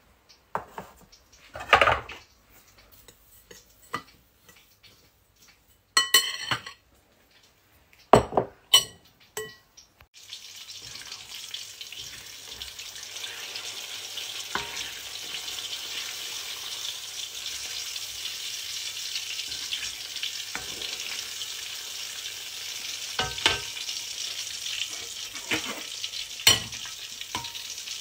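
A few sharp knocks and clatters, then from about ten seconds in a steady sizzle of oil frying ginger, onion, garlic and whole spices in a stainless steel pan, infusing the oil for chili oil. A metal ladle clinks against the pan a few times near the end.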